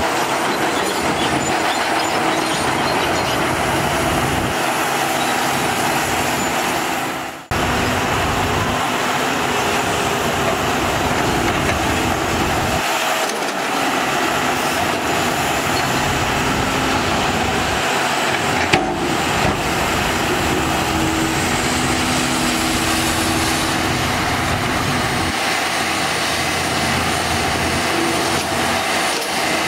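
Heavy diesel machinery running steadily: Hyundai crawler excavators digging and loading dump trucks, with the trucks' engines running alongside. The sound drops out briefly about seven seconds in, and there is a single short knock a little past the middle.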